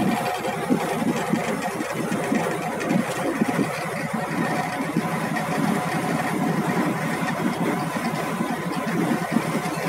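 A river boat's engine running steadily underway.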